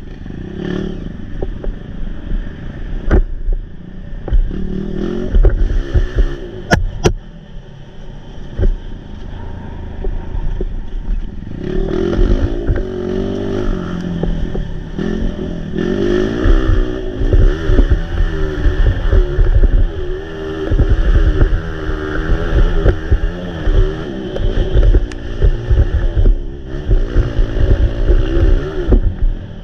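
230 cc trail motorcycle engine running under way, revving up and down with the throttle, louder and busier from about twelve seconds in. A few sharp knocks come in the first seven seconds.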